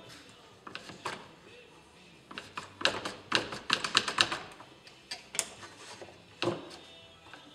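One-handed trigger bar clamp being squeezed down on a steel mower blade against a wooden workbench: a quick run of sharp clicks about three seconds in, with a few single knocks before and after.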